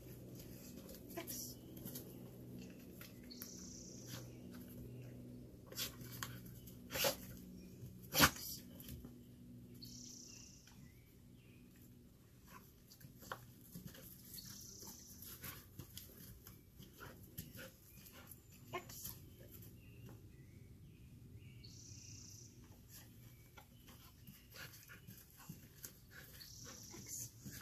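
A dog's quiet sounds, with a few sharp clicks about six to eight seconds in, the loudest near eight seconds, over a low steady hum. A short high chirp comes back every few seconds.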